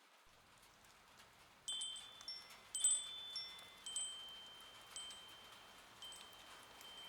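Metal chimes ringing: a cluster of clear, high tones struck about a second and a half in, then lighter single strikes about once a second, each fading slowly. A soft, even hiss of rain builds underneath.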